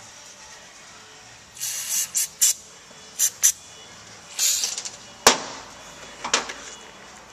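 Aerosol spray can hissing in a series of short bursts, about six, as it is sprayed onto the seat's rails and frame. A single sharp knock follows just after five seconds, the loudest sound here.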